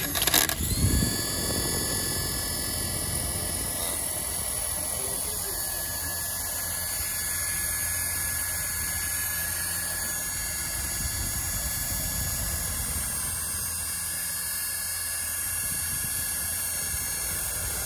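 Small toy helicopter's electric motors spinning its twin stacked rotors, a steady whir, held in the hand.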